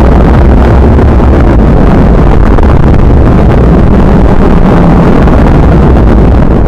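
Heavy rain as a loud, steady rushing noise with a deep rumble underneath.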